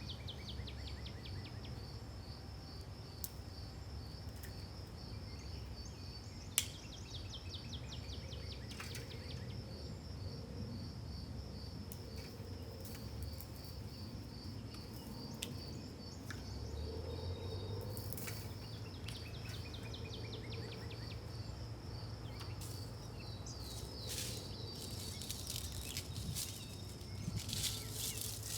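Outdoor ambience of insects chirping in a steady, high, pulsing trill, with short bird chirps now and then. A single sharp click sounds about six and a half seconds in.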